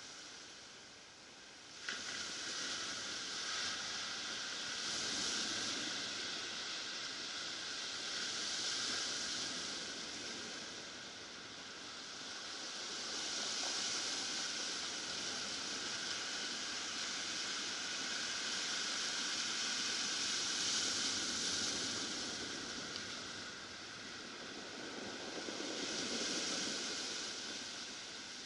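Ocean surf breaking and washing up a cobble beach, swelling and fading every several seconds, with a sudden rise about two seconds in.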